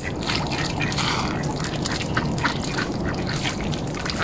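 White mallard ducks quacking, a quick, irregular run of short sounds.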